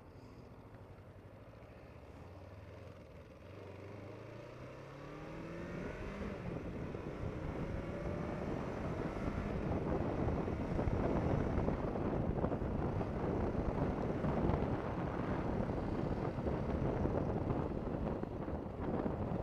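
Kawasaki Ninja 500R (EX500) parallel-twin engine accelerating, its pitch climbing over the first several seconds. From about six seconds in, wind rushing over the helmet mic builds and drowns the engine as speed rises.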